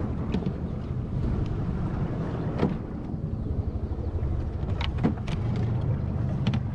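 Outboard motor idling roughly while running on only one cylinder, a misfire the owner is nursing to the dock. A few sharp knocks sound over it, one about two and a half seconds in and a cluster around five seconds in.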